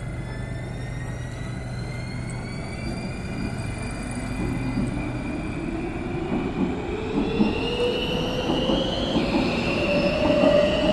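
Metro train pulling out of an underground station: its electric traction motors whine, rising steadily in pitch as it gathers speed and dropping suddenly about nine seconds in, over a growing rumble of wheels on rails.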